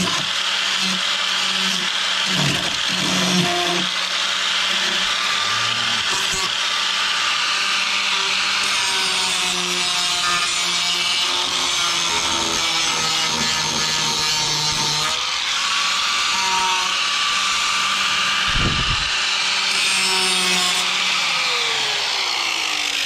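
Angle grinder grinding down the rough, rusted steel edge of a pickup's rocker panel, running steadily with its pitch wavering, then winding down near the end.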